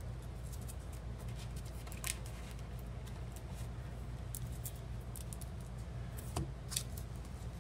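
Game cards being handled: scattered faint clicks and light rustles of card stock, over a steady low hum.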